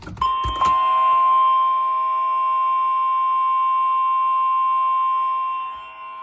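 NOAA Weather Radio 1050 Hz warning alarm tone: one steady, loud, high beep-like tone held without a break, sounding the start of a new severe thunderstorm warning broadcast. It is preceded by a few brief clicks in the first half-second and dips briefly in loudness near the end.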